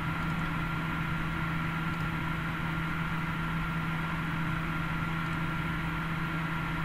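Steady background machine hum with a constant thin high-pitched whine over it, unchanging.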